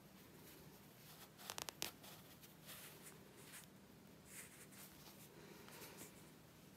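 Faint rasping rustle of embroidery floss being drawn through a knitted doll's head as fingers handle the needle and yarn, with a quick run of small clicks about a second and a half in, over a faint steady hum.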